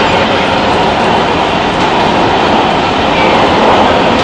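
Loud, steady running noise of a Los Angeles Metro Red Line Breda A650 subway car in motion, wheels rumbling on the rails, heard from inside the passenger cabin.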